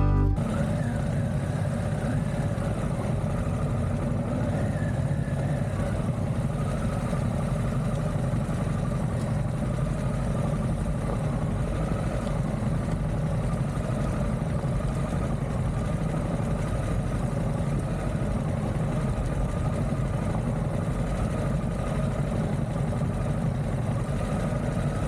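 Harley-Davidson Pan America V-twin motorcycle engine running at a steady cruise, mixed with road and wind noise. The sound holds an even pitch and level throughout.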